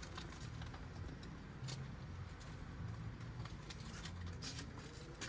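A few faint, scattered clicks and light rattles of hands working at plastic car interior trim around a screw, over a low background hum.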